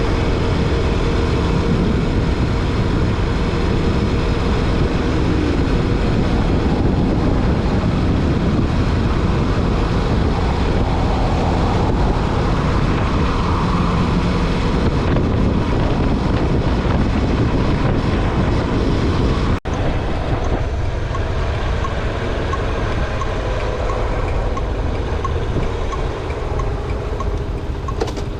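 Honda Super Cub 90's single-cylinder four-stroke engine running as the bike is ridden, with steady wind rushing over the microphone. About two-thirds of the way through the sound cuts out for an instant and carries on a little quieter, with less wind.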